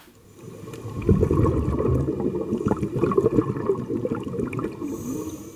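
Bubbling water heard as if from under the surface, swelling up about a second in and fading away near the end.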